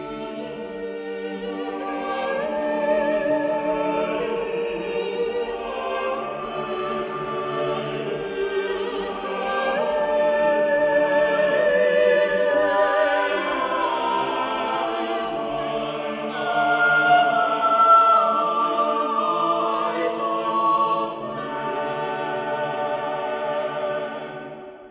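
Mixed church choir singing an anthem in several voice parts, the voices holding and moving through long notes together. Near the end the final chord dies away.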